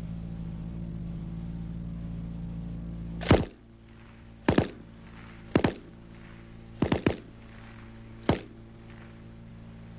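Browning Automatic Rifle (.30-06, M1918A2) firing five short bursts about a second apart, starting about three seconds in; several bursts are two or three shots in quick succession. A steady hum runs beneath until the first burst.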